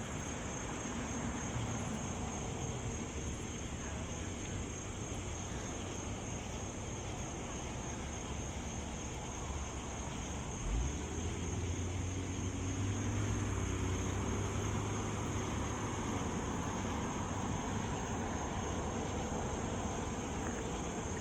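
Highway traffic going by, a steady rush of road noise. About halfway through there is a single thump, then a low drone from a heavier vehicle swells for several seconds and fades.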